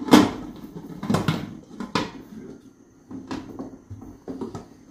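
Metal pressure cooker lid being set on the pot and twisted shut: a series of clanks and knocks, loudest at the start and getting fainter.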